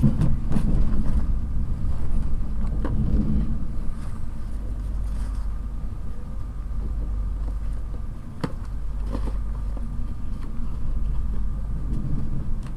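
Steady low rumble of an InterCity 225 passenger coach rolling along the track, heard from inside the carriage, with a few sharp clicks and knocks from the running gear.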